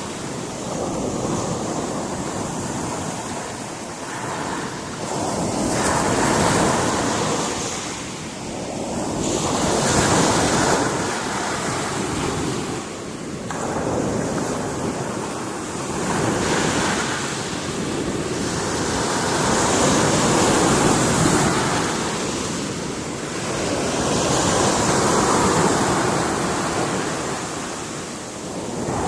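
Sea waves breaking against a rocky shore, the surf swelling and falling back every three to four seconds.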